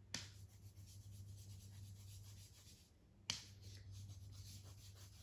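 Faint rubbing of a drawing tool on paper as a picture is coloured in, with two short taps, one near the start and one about three seconds later.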